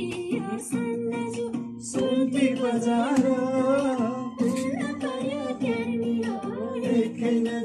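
Music: a song with a singing voice over plucked guitar and steady held low notes.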